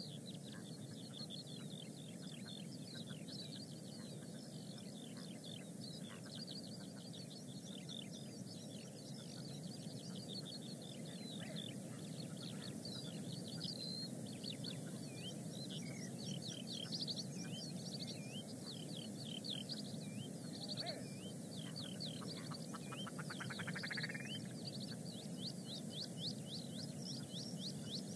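Small birds singing in a dense run of quick, high chirps and trills over a steady low background rumble.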